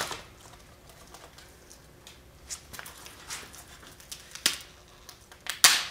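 Mold material being broken and torn away by hand from a cured carbon fiber and epoxy part held in a vise: scattered crackles, snaps and tearing, with the loudest cracks about four and a half seconds in and near the end.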